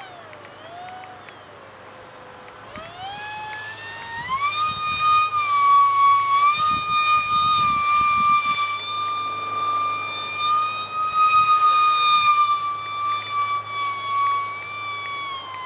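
Electric ducted fan of a micro RC jet (a UMX F-16 EDF unit) whining in flight. Its pitch falls over the first couple of seconds, climbs sharply about three to four seconds in, holds high and steady, then drops again near the end as the throttle and the jet's passes change.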